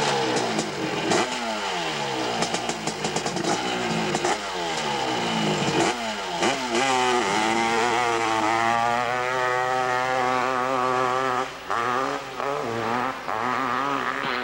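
Dirt bike engine revved in repeated blips, each note falling away, with some crackle, at the bottom of a hillclimb. About six seconds in it opens up to full throttle and holds high revs for the climb, then dips and stutters a few times near the end.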